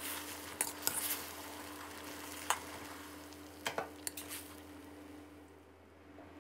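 A steel spatula scraping and knocking against a steel wok as oyster mushrooms and green onions are stir-fried, with several sharp knocks over a light sizzle that fades away near the end.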